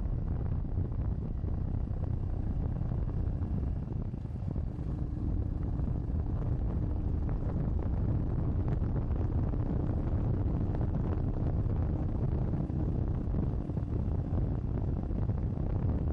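Heavy wind buffeting on an action camera microphone that has lost its furry windscreen, from riding a Royal Enfield Hunter 350 motorcycle. The single-cylinder engine is a faint steady note underneath for part of the time.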